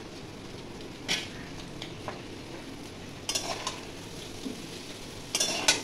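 Noodles and fried vegetables sizzling steadily in a steel wok, with a few short clinks and scrapes of a metal spoon on the pan and bowl. The loudest clatter comes near the end.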